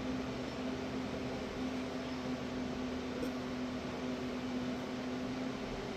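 Steady machine hum with a constant low tone, the background drone of a running appliance such as a fan.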